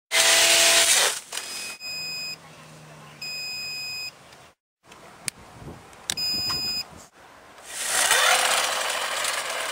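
Cordless brush cutter's electric motor spinning a nylon line head through grass, loud in the first second and again from about eight seconds in, where its whine rises as it spins up. In between come three short, steady electronic beeps.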